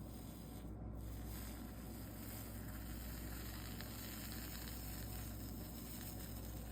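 Faint sizzling hiss of flux and molten solder under a soldering iron on a stained-glass seam, filling in about a second in, over a steady low electrical hum.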